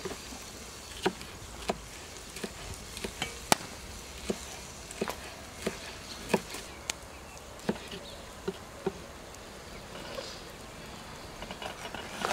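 Large kitchen knife slicing bell pepper on a wooden cutting board: irregular sharp knocks as the blade strikes the board, roughly one or two a second.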